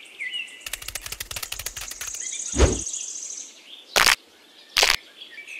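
Edited-in sound effects over faint bird chirping. A fast clicking rattle comes first, then a high steady tone with a thud about halfway through. Two sharp hits under a second apart follow near the end, as two fists meet.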